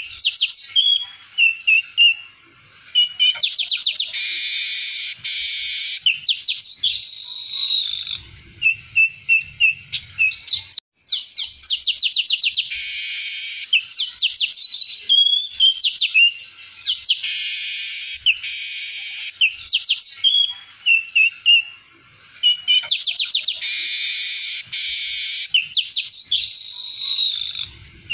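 Male streaked weaver (manyar kembang) singing constantly: long buzzy wheezes alternate with rapid ticking trills, short chirps and gliding whistles, the same phrase coming round again and again.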